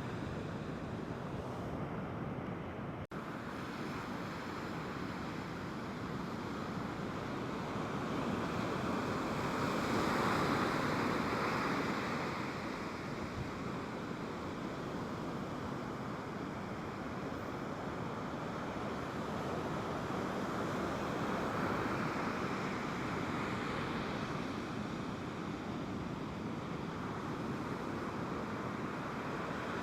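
Ocean surf breaking and washing up the shore, with wind buffeting the microphone; the surf swells and ebbs, loudest about ten seconds in.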